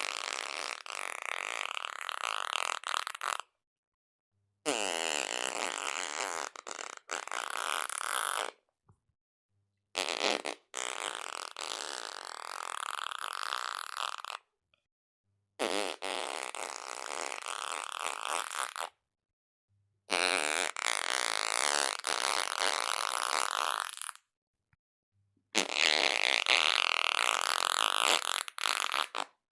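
A series of fart sounds, each lasting about four seconds and cut off sharply, with a second or so of dead silence between them.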